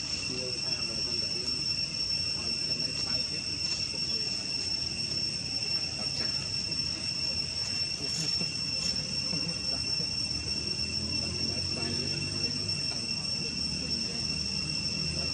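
Steady, unbroken high-pitched insect drone from forest crickets or cicadas, two even tones with the upper one the louder, over a faint low murmur.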